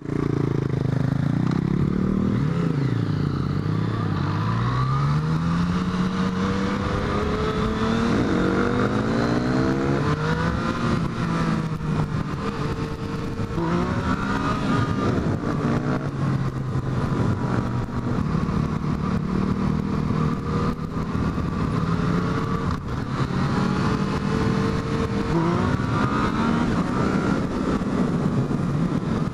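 Yamaha FZ-09's three-cylinder engine pulling a motorcycle up through the gears, the pitch climbing and dropping back at each shift several times over, then holding a steadier cruising note.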